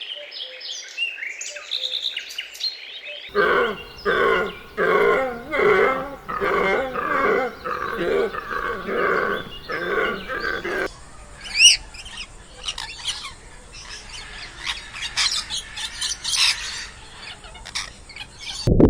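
A run of animal calls: about three seconds of bird chirping, then about ten hoarse, evenly spaced calls roughly one every 0.8 seconds, then higher-pitched chirps and whistles with a few quick rising-and-falling notes.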